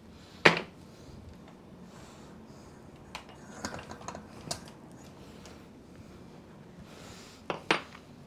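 Sharp mechanical clicks and light clatter of a mountain bike's rear wheel being worked loose and lifted out of the frame. The loudest click comes about half a second in, a few lighter ones follow midway, and two more come close together near the end as the wheel comes free.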